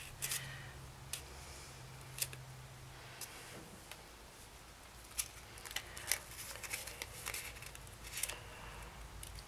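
Faint crinkling and small clicks of red paper being folded and pressed between the fingers as a glued paper-flower petal is held in place, with a low hum during the first few seconds.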